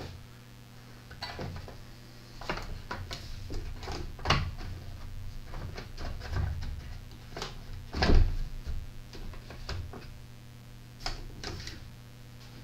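Scattered clicks, knocks and clunks of objects being handled, with a louder clunk about eight seconds in, over a steady low hum.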